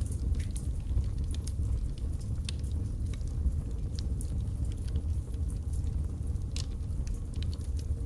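Wood logs burning in a fireplace: a steady low rumble of flames with scattered crackles and pops, one louder pop late on.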